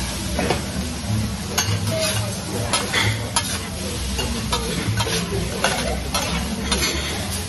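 Food sizzling on a teppanyaki griddle while metal spatulas scrape and clack against the hot steel plate, a dozen or so irregular strikes.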